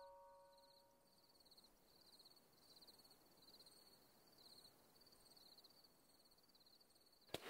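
Faint cricket chirping, short trilled chirps repeating about twice a second. A bell-like note dies away at the start and a sharp click comes just before the end.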